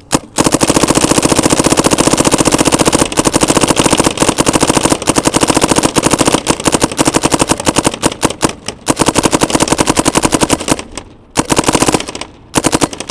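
Dye M3s spool-valve paintball marker firing paintballs on compressed air in rapid, continuous strings of shots, with a few brief breaks in firing near the end.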